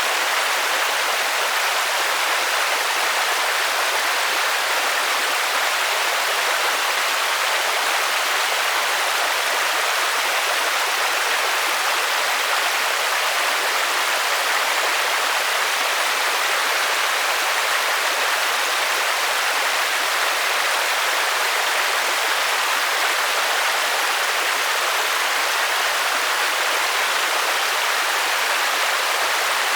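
Steady rainfall, an even hiss.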